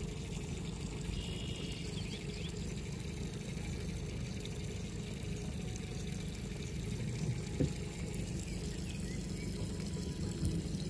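Boat under way on a calm lake: a steady low rumble with water trickling and splashing along the hull.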